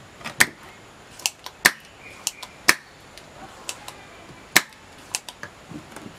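Spring-loaded desoldering pump (solder sucker) clicking sharply as it is cocked and fired, about a click a second at uneven spacing, some in quick pairs, while sucking solder from a CRT TV flyback transformer's pins.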